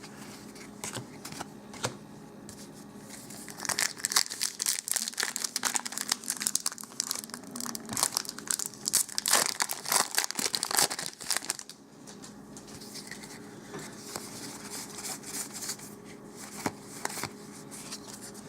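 Magic: The Gathering booster pack wrapper crinkling and tearing as it is opened, dense crackling from about 4 to 11 seconds, then lighter rustles and clicks of handling.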